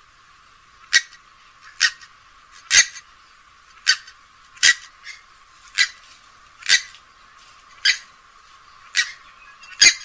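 Grey-headed swamphen giving a series of short, sharp call notes, about one a second, each clipped off quickly.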